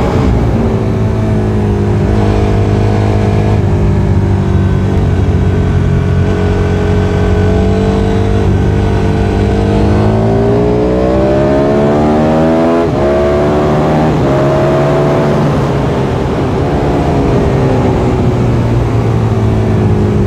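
KTM RC8 V-twin engine heard from an onboard camera while lapping a circuit. The engine note climbs under throttle and falls back with gear changes and off-throttle, with a sharp drop about two-thirds of the way through.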